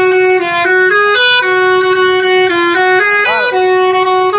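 Bus telolet horn playing a melody: a loud, reedy multi-note air horn stepping quickly from one held note to the next.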